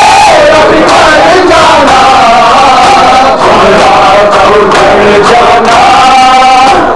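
Loud male voices chanting a noha together, with rhythmic slaps of palms striking bare chests in matam.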